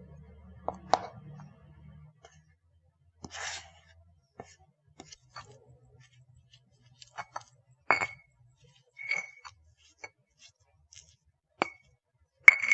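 Kitchen utensils knocking and clinking against a bowl: a string of separate knocks and taps with several short ringing clinks, the loudest pair near the end.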